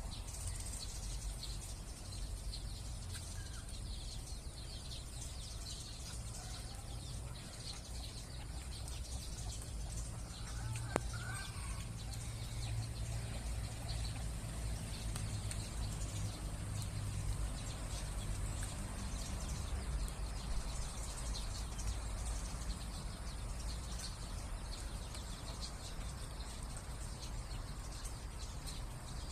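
Small birds chirping in many short scattered calls over a steady high hiss and a low background rumble. There is one sharp click about eleven seconds in.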